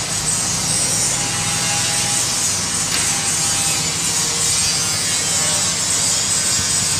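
Diesel engine of an Escorts F15 pick-and-carry crane running steadily at idle, a low hum under a strong even hiss.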